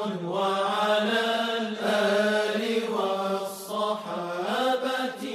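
A voice chanting an Islamic devotional hymn without instruments, drawing out long notes with ornamented bends in pitch.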